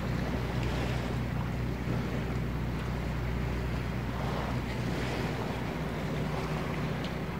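A steady low engine hum over a calm bay, with water lapping and wind buffeting the microphone.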